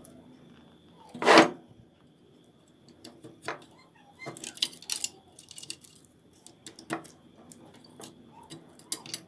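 Scattered clicks, knocks and rattles of a CRT television's circuit boards and wiring being handled on a bench. The loudest is a short burst of rustling about a second in, then a cluster of clicks around four to five seconds.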